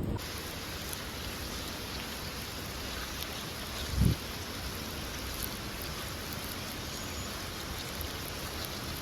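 Steady, even rushing noise like rain or running water, with faint scattered ticks and one low thump about four seconds in.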